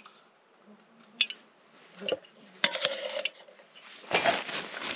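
Cookware and utensils clinking and being handled during a meal: a few sharp clicks, then two longer noisy bouts of handling in the second half.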